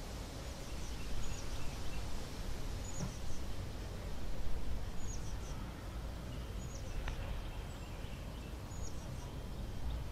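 Outdoor field ambience: a steady low rumble and hiss, with a small bird giving short, high chirps every couple of seconds.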